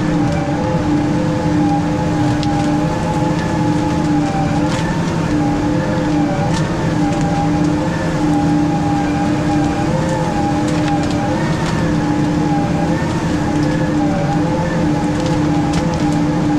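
Weiler S340 skidder's diesel engine running steadily as the machine drives, a steady drone whose pitch wavers slightly, with occasional faint sharp clicks.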